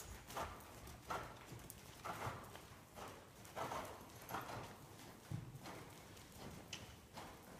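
A ridden horse's hooves falling on soft, churned sand arena footing: a series of dull, fairly faint footfalls about every half second to second.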